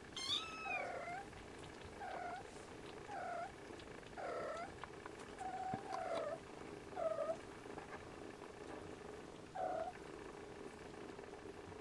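Siamese kittens mewing as they crowd in to nurse from their mother: a series of short, high-pitched mews about one a second, dying away near the end.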